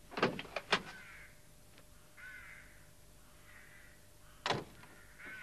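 A few knocks near the start, then a van door shutting with one sharp click about four and a half seconds in. In between, three faint cawing bird calls.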